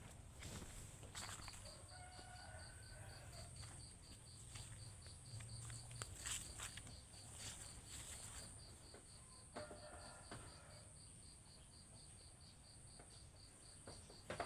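Faint insects in rural vegetation: a steady high buzz with a regular high pulsing chirp, about three pulses a second. A few short faint calls come in about two seconds in and again near ten seconds, with a few light clicks.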